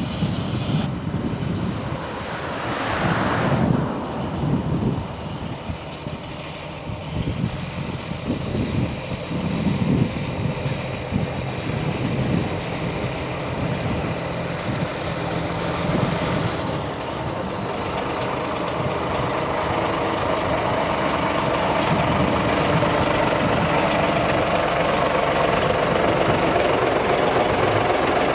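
Narrow-gauge diesel locomotive approaching slowly along the track, its engine running and growing steadily louder as it draws close. A steam hiss is cut off about a second in.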